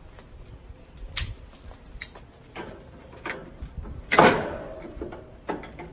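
Stainless steel grill grates of a Weber Genesis II gas grill clanking and scraping against the grill body as they are lifted out with metal tongs. There is a string of light knocks, and one loud ringing clank a little after four seconds in.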